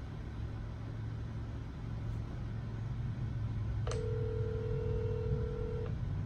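Smartphone ringback tone from an outgoing call: one steady two-second ring starting about four seconds in, the call ringing unanswered at the other end, over a low steady hum.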